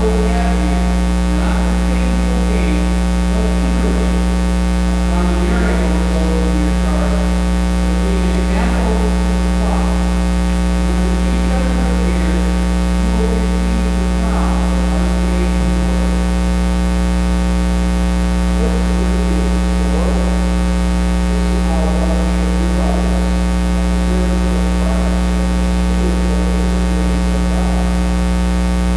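Loud, steady electrical mains hum with a stack of overtones, with a faint, distant voice under it.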